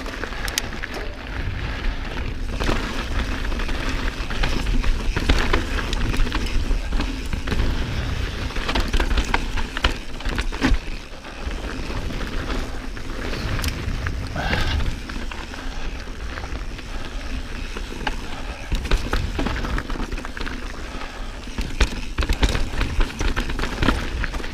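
Mountain bike ridden over rough, rocky trail: wind buffeting the microphone, with tyre noise and frequent knocks and rattles from the bike all the way through.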